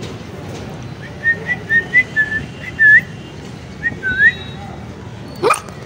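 A person whistling a run of about nine short, clear notes, several flicking upward in pitch at the end, calling a puppy. A short, sharp, rising squeak follows near the end.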